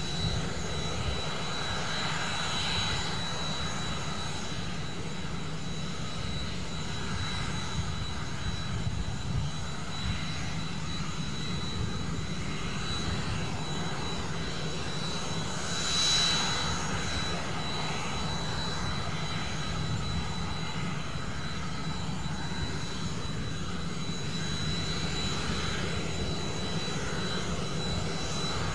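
Aérospatiale SA315B Lama's Turbomeca Artouste turboshaft turbine running steadily on the ground during its engine run-up: a constant high turbine whine over a low rumble. About sixteen seconds in, the noise briefly swells louder.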